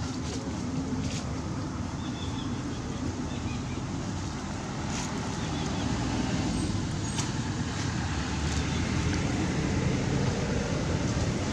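Steady low background rumble that grows a little louder in the second half, with a few faint short clicks.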